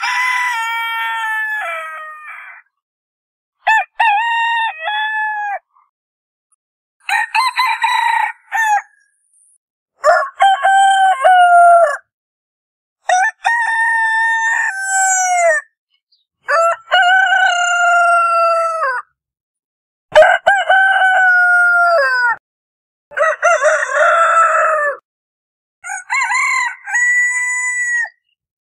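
Roosters crowing: a string of about nine separate cock-a-doodle-doo crows from different roosters, each lasting about two seconds, with dead silence between them.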